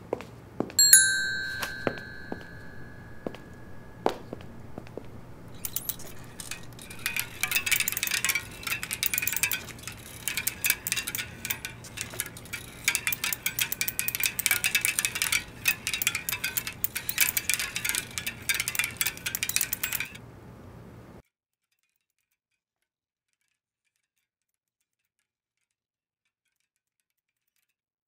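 A bell-like chime strikes once about a second in and rings away over a few seconds, among a few sharp clicks. After that comes a long run of dense crackling clicks that stops abruptly, and then there is silence.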